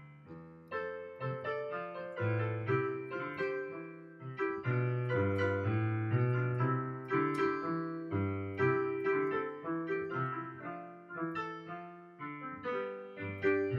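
Piano music: chords over a bass line, each note struck and left to fade.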